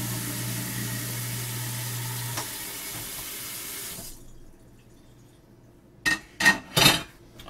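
Kitchen faucet running as a plate is rinsed in the sink, with a low hum that stops about two and a half seconds in. The water shuts off about four seconds in, and three sharp knocks follow near the end.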